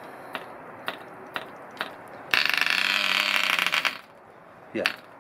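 Hand-held ED Baby 0.46 cc model diesel engine being flicked over by its propeller. Four sharp clicks come about half a second apart. About two and a half seconds in it fires and runs briefly for about a second and a half, then stops abruptly, and one more flick click follows near the end.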